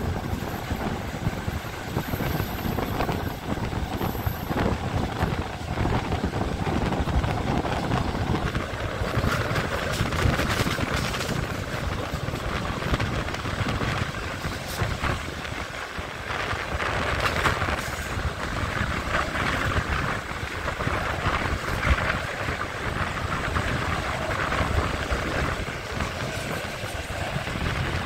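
Passenger train carriage running over the track, heard through an open window: a steady rumble and clatter of wheels on rails with rushing wind, the hiss growing stronger about a third of the way in.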